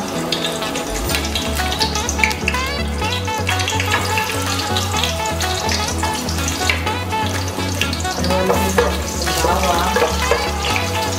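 Garlic cloves sizzling and crackling steadily in hot oil in a stainless steel pot, stirred by hand.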